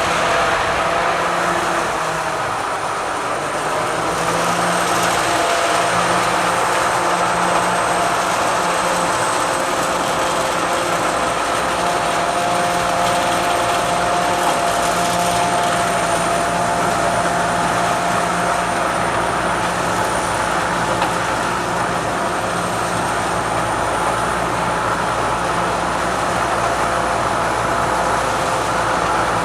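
Corn combine harvester running steadily: a constant machine drone with several steady tones and a thin high whine on top.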